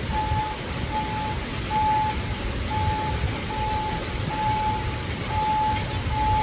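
Backup alarm on construction equipment beeping steadily, a little over one beep a second at a single mid pitch, over the low rumble of heavy machinery engines.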